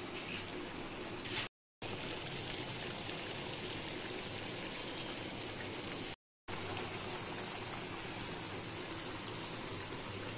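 Chicken pieces and yogurt masala sizzling and bubbling steadily in a frying pan on high heat, the stage where the yogurt is fried with the chicken. The sound cuts out briefly twice.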